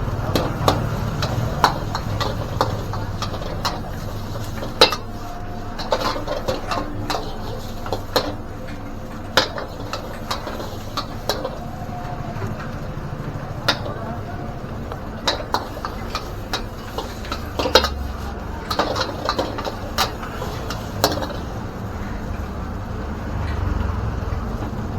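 A metal spatula or ladle clanging and scraping against a wok as fried rice is stirred and tossed: irregular sharp clangs, sometimes several in quick succession, over a steady low background rumble. The clangs thin out near the end.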